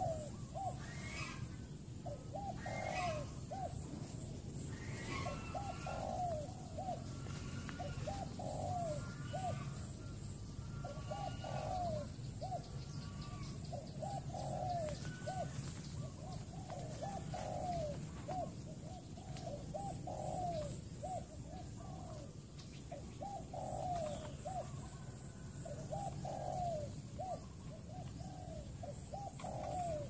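Spotted dove cooing over and over, a short phrase of rough coos every couple of seconds. Fainter, higher chirps from other small birds come in during the first half.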